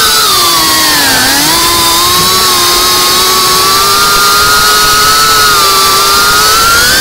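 GEPRC Cinelog 35 FPV drone's brushless motors and propellers whining in flight. The pitch dips about a second in, holds fairly steady, then rises near the end as the throttle eases and comes back up.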